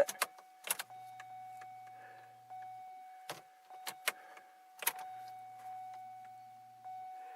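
Electric fuel pump of a 2002 Chevy Malibu running with a steady whine while it fills the fuel line, slow to pick up fuel. A few sharp clicks sound over it.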